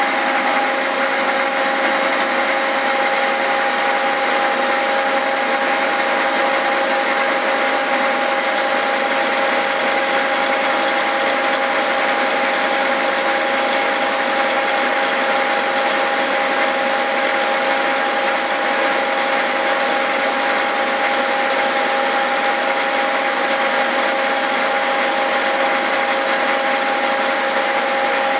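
Cincinnati horizontal milling machine running, its spline cutter climb-milling splines into a 4340 steel axle shaft. It makes a steady whine of two held tones over a dense, even cutting noise; the machine is making a lot of noise.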